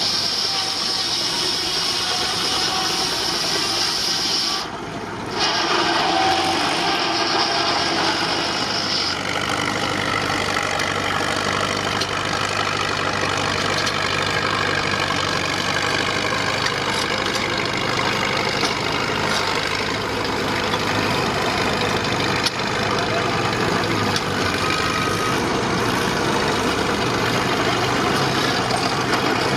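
Baker Uniflow steam traction engine belted to a sawmill, running steadily together with the mill's machinery. A high hissing band stops about nine seconds in, and there is a short dip in the sound near five seconds.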